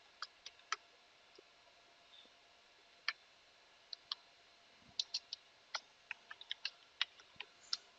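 Computer keyboard keystrokes and clicks, typing an admin username and password: a few scattered taps, then a quicker irregular run of keystrokes from about five seconds in.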